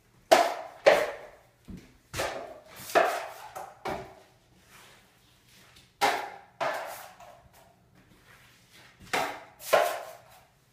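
A metal drywall knife scraping across a drywall wall in short swipes, about ten in all and often in pairs, each a quick scrape that fades within half a second.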